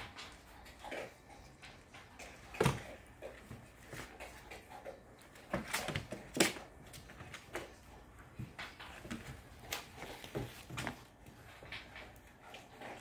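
Three-week-old puppies clambering over each other in a plastic kiddie pool: scattered soft scuffles and knocks on the plastic and towel, with a few louder sharp knocks about three, six and ten seconds in.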